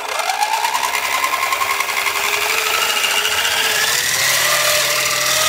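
Cordless Dremel rotary tool's motor running up to speed as it drives the rotor of a homemade helicopter in flight. Its whine rises quickly in the first second, then climbs slowly and levels off near the end, with a rapid chop from the spinning blades.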